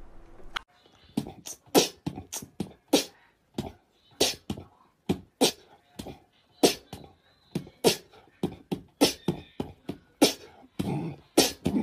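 A rapid, irregular series of sharp clicks or smacks, about two to three a second, with no speech.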